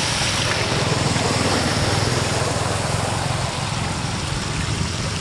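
Shallow muddy floodwater running and trickling steadily past sandbags and out through a bamboo fish trap.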